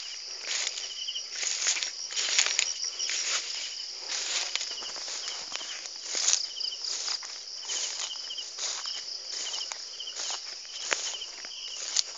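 Footsteps brushing through low weeds and grass, one or two a second, over a steady high insect buzz with short chirping trills repeating every second or so.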